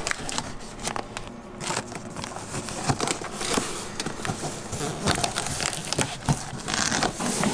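A knife slicing along the packing tape of a cardboard shipping box, with the tape and cardboard crackling and scraping in many short scratches.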